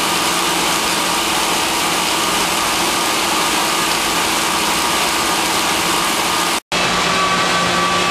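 84-inch Blanchard rotary surface grinder grinding the face of a metal riser block under flood coolant: a loud, steady, hissing grind. Near the end the sound drops out for an instant and comes back as a steadier machine hum with a faint high whine.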